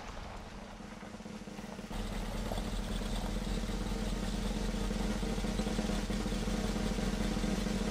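1979 Ford Econoline ambulance's engine running steadily while the van drives along a wooded track. It is faint for about the first two seconds, then suddenly louder and close, with a steady hum.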